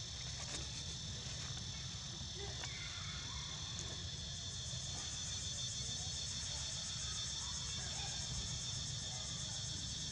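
Steady, high-pitched chorus of insects, running unbroken over a low steady rumble.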